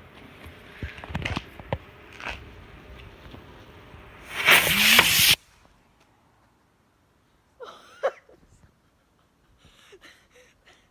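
Small firework hissing loudly for about a second, about four seconds in, and stopping abruptly, after a few seconds of crackly rustling and scattered clicks.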